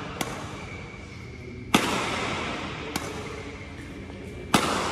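Yonex Astrox 88S Pro badminton racquet striking a shuttlecock in a rally: two loud, sharp hits about three seconds apart, each ringing on in the hall's echo, with a fainter hit from the far end of the court before each.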